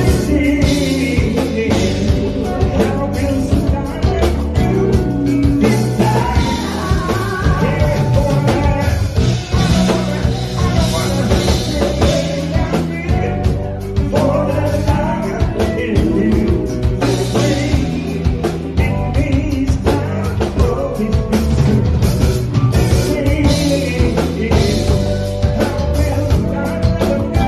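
Live band music: an R&B band plays loudly with electric guitars and a drum kit keeping a steady beat, while lead vocals are sung over it.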